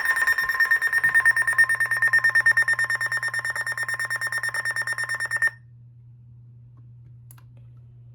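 Weather alert radio sounding its alarm: a rapid, high-pitched pulsing beep for about five and a half seconds, signalling an incoming alert, which cuts off suddenly and leaves a faint low hum.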